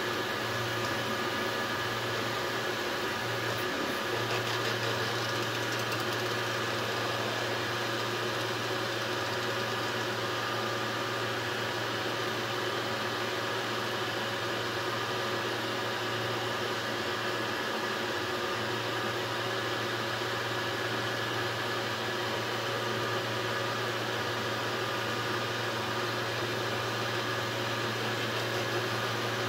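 Large dual-extruder 3D printer running: a steady hum with several steady whining tones from its cooling fans and stepper motors as the print head moves over the glass bed.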